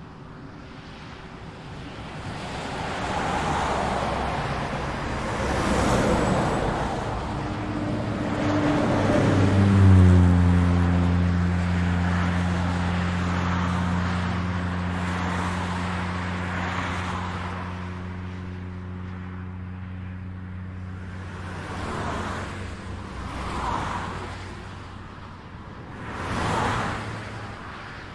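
Highway traffic passing in a series of swells and fades of tyre and engine noise. About ten seconds in, at the loudest point, a heavy engine note drops in pitch as the vehicle passes, then holds as a steady low hum for most of the rest. Several quicker car pass-bys follow near the end.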